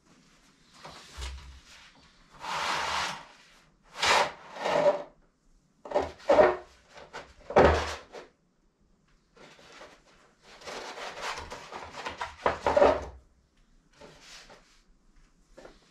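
A long paper scroll being handled and shifted on its wooden table: uneven bursts of paper rustling and scraping with soft knocks on wood, separated by short pauses.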